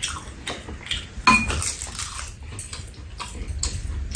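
Metal spoons and chopsticks clinking against bowls and the tray while eating stew: a run of light clinks, the sharpest about a second in with a short metallic ring.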